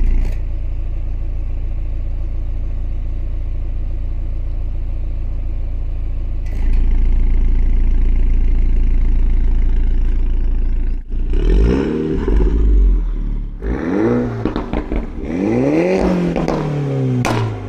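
Mini Cooper S John Cooper Works' 2-litre inline-four with its valved JCW exhaust idling. About six seconds in, a click and the idle turns louder and deeper as the exhaust valves open. Then come three quick throttle blips, each rising and falling in pitch, with a sharp crack near the end.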